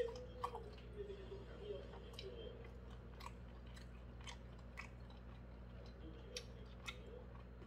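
Close-up mouth sounds of a person chewing a pan-fried chive dumpling: soft, wet smacks and clicks at irregular intervals.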